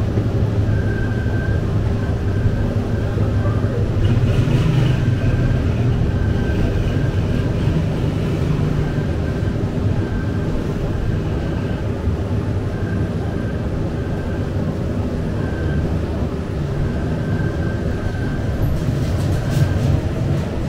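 Bakery machinery running: a steady low mechanical hum and rumble, with a faint high tone pulsing about once a second.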